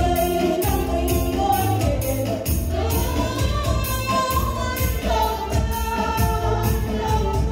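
Background music with a steady beat and singing voices.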